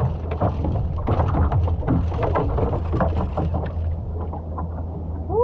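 Small fishing boat's motor running steadily with a low hum, with frequent short knocks on the hull over it.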